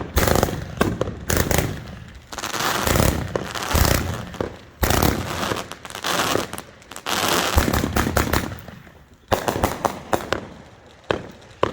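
Fireworks going off: sharp bangs, with several stretches of dense crackling lasting a second or two each. Near the end they thin to a few scattered single pops.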